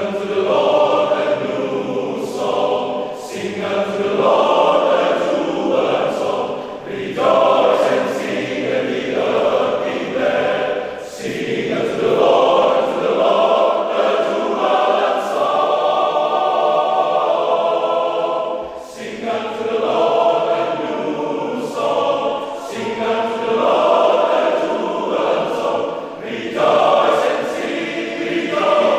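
Men's church choir singing an anthem in parts, phrases separated by short breaths. The choir enters together right at the start after a moment of quiet.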